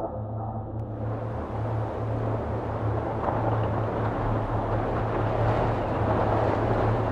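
A steady rushing rumble over a low hum that comes in about a second in and slowly grows louder, taking over from a dark ambient drone.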